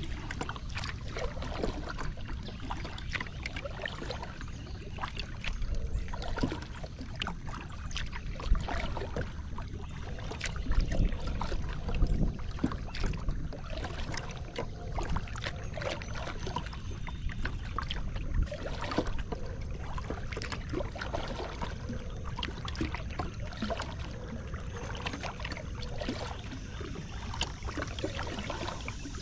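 Kayak being paddled across calm water: small splashes and drips from the paddle and water lapping at the hull, with a few louder low bumps around the middle.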